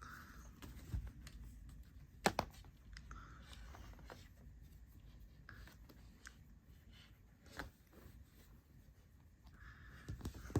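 Faint rustling and scratching with three sharp clicks, from a house cat at play.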